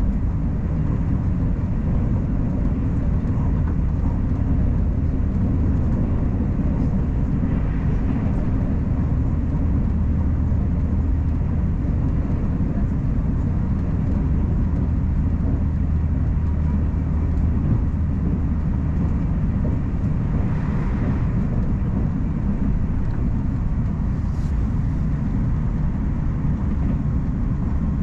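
Puyuma Express tilting electric train running at speed: a steady low rumble of wheels and running gear on the rails, unbroken throughout.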